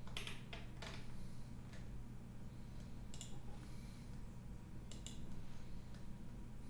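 Computer mouse clicks, a handful of sharp single clicks spaced a second or two apart, over a steady low hum.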